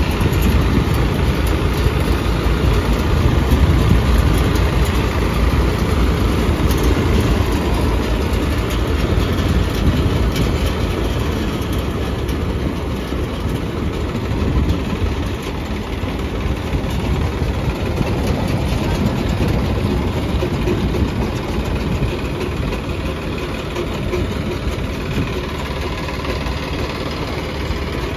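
Massey Ferguson 9500 tractor's diesel engine running steadily, driving a tractor-powered thresher whose drum and fan add a continuous mechanical rumble and rattle. It eases slightly about midway through.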